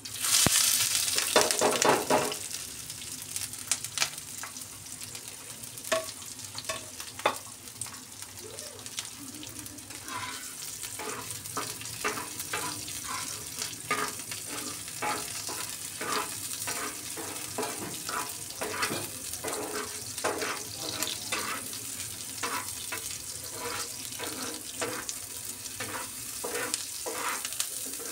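Chopped onions and green chillies sizzling in oil on a hot tawa griddle, while a steel spatula stirs and scrapes them across the pan in many short strokes. The sizzle is loudest in the first two seconds, then settles to steady frying under the spatula strokes.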